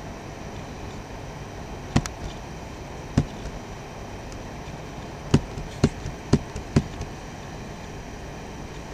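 About six sharp, short clicks from slides being paged through on a computer: one near 2 s, one near 3 s, then four in quick succession in the second half, over a steady background hiss.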